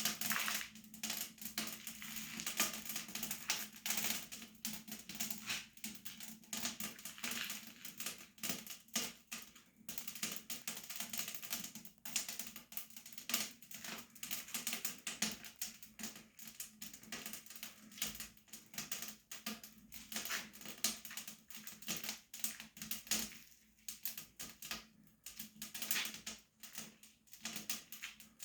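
Wood fire crackling in a masonry stove-fireplace, with dense, irregular snaps and pops throughout.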